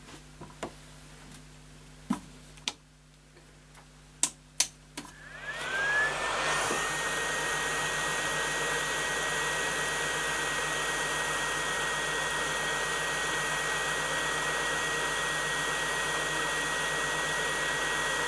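A few light clicks of handling, then about five and a half seconds in a hot air rework station's handpiece starts blowing: its fan spins up with a rising whine that settles into a steady high tone over a steady hiss of air.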